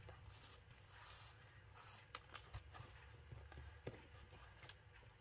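Near silence over a low steady hum, with faint rustles and a few light taps as a paper card is handled and set down on a tabletop.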